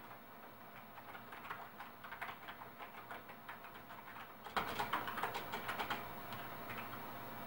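Typing on a computer keyboard: irregular key clicks, turning into a quicker, louder run of keystrokes about four and a half seconds in that stops about a second and a half later, leaving a faint steady hiss.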